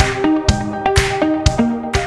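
Upbeat electronic background music with a steady beat of about two beats a second under a synth melody.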